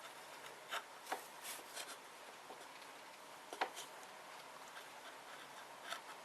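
Faint, scattered clicks and rubbing of a bolt and nut being handled and pushed back into place, with a sharper click about three and a half seconds in.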